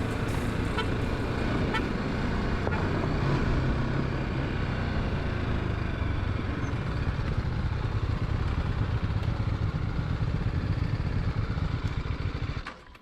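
Motorcycle engine running steadily, with a few short clicks in the first couple of seconds. It drops away abruptly just before the end.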